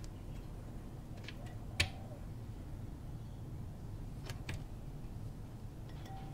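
Small metallic clicks as the pad retaining pin and R-clip are worked into a Royal Enfield Himalayan's rear brake caliper with fingers and pliers: one sharp click about two seconds in and a quick pair a little after four seconds, over a steady low hum.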